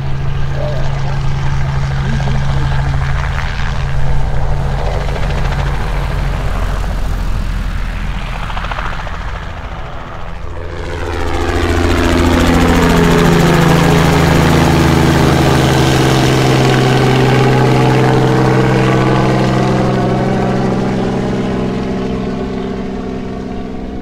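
Light propeller airplane's piston engine running, joined about ten seconds in by a plane passing close by: the sound swells, stays loud for several seconds with a sweeping, shifting tone, then fades away near the end.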